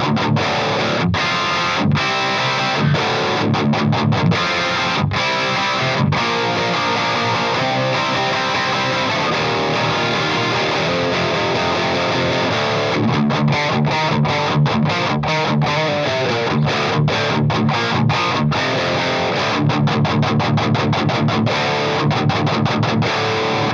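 Electric guitar, tuned to D standard, played through a Marshall Vintage Modern 2466 100-watt valve head with the gain on max and no boost, into a 1x12 cabinet with a Celestion Greenback speaker, close-mic'd. Heavy distorted riffing with chugging rhythms cut by short stops, most rapid in the second half.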